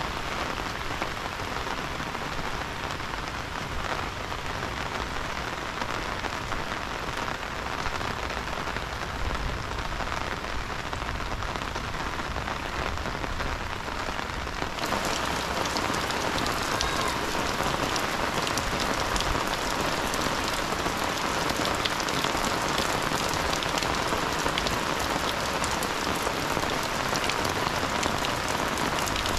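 Heavy rain falling steadily, a dense hiss of drops. About halfway through it turns slightly louder and brighter, with sharper individual drop ticks.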